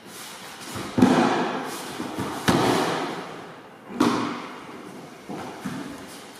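Three heavy thumps on a martial-arts mat, about a second and a half apart, each with an echo in a large hall, as a person is taken down onto the mat in a choke escape.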